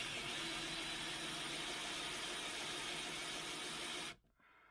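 Power drill spinning a hole saw into a solid pine door, running at a steady speed for about four seconds and then stopping suddenly.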